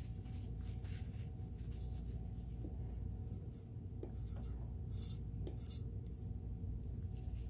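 Light rubbing and scraping from hands working the greased parts of a sewing machine, in short scratchy bursts clustered in the middle, over a steady low hum.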